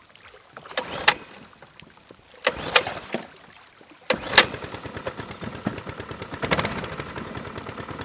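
PPF mud motor's small gas engine being started: two pairs of short knocks about a second and a half apart, then it catches about four seconds in and runs with a rapid, even putter, briefly louder about six and a half seconds in.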